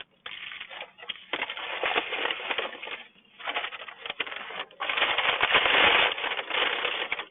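Close-miked crunching and chewing of a fried chicken sandwich, in several crackly stretches, the loudest near the end.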